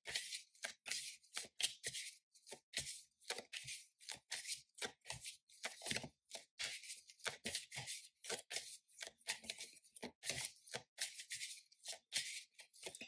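A tarot deck being hand-shuffled overhand: a steady run of quick papery card flicks and slaps, about three a second.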